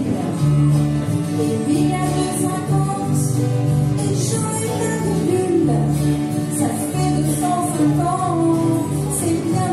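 Live guitar band playing a song: several acoustic and electric guitars strumming over long held bass notes, with a woman singing the melody.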